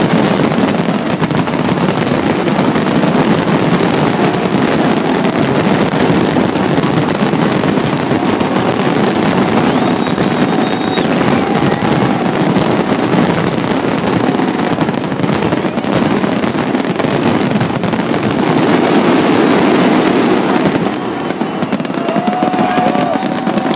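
Fireworks finale: a loud, dense, continuous barrage of shell bursts and crackling with no gaps, easing slightly near the end.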